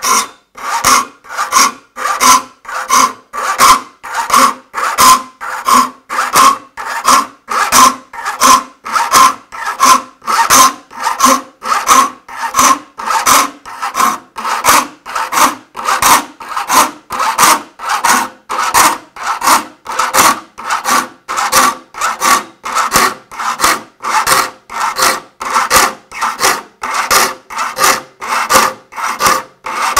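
Saw file stroking across the teeth of a handsaw clamped in a vise, in even rasping strokes about three every two seconds, each with a steady ringing note from the steel saw plate. The teeth are being filed to a rip-cut shape.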